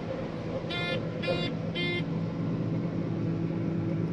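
Truck engine idling steadily, with three short, high electronic beeps about half a second apart, about a second in.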